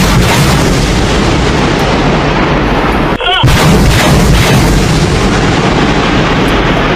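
Truck-mounted multiple rocket launcher firing a salvo: a loud, continuous roar of rockets leaving the tubes, broken by a brief dip about three seconds in.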